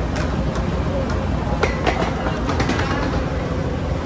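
Hard-shell suitcases rolling onto a metal roller conveyor at a baggage scanner: a steady rumble with a run of sharp clicks and knocks from about a second and a half in.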